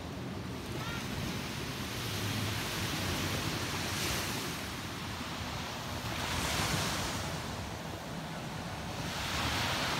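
Small waves breaking and washing up a sandy beach, the surf hiss swelling three times, with wind rumbling on the microphone.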